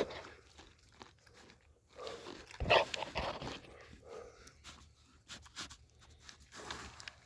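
Deer chewing carrots: scattered wet crunches and crackles, loudest about three seconds in.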